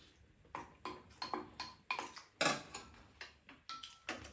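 Eating sounds: spoons and chopsticks clicking against ceramic bowls together with chewing, as a string of irregular light clicks. A louder, brief noisy sound comes about halfway through.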